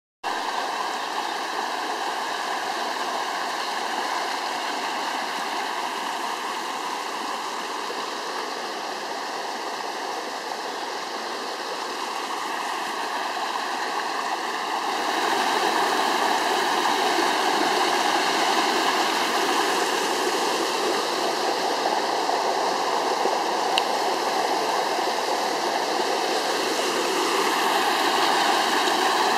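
A small forest stream in flood after a downpour, muddy water rushing and tumbling over small cascades in a steady rush that grows louder about halfway through.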